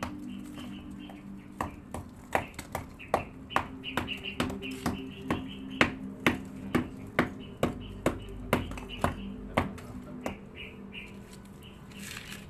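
Hammer repeatedly striking the concrete and block front of a tomb niche to break it open: a steady run of sharp knocks about two a second, stopping near the end.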